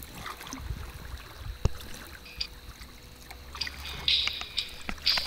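Water splashing and trickling around a landing net held in the river at the side of a boat, with a trout in the net. One sharp knock comes a little under two seconds in. From about three and a half seconds the splashing turns louder and hissier.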